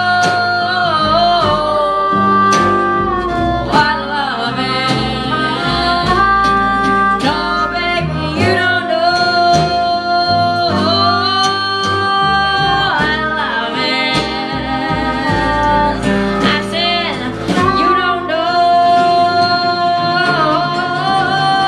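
A woman singing long, wavering held notes, accompanied by strummed acoustic guitar.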